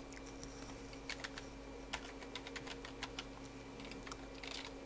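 Computer keyboard keys clicking as an IP address is typed: scattered single keystrokes at an uneven pace, with a short quicker cluster near the end, over a steady low hum.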